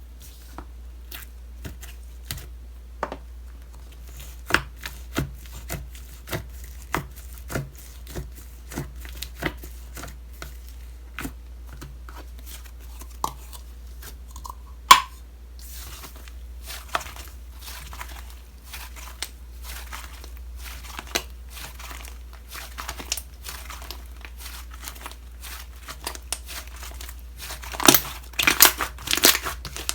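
Slime being squeezed and stretched by hand, giving sticky clicks and small air-bubble pops, with one louder pop about halfway and a dense run of crackling near the end.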